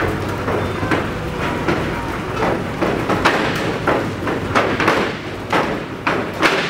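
Wrestlers' feet and bodies thudding and rattling on a wrestling ring's canvas-covered boards: a run of irregular knocks and thumps, several a second, over a steady low hum.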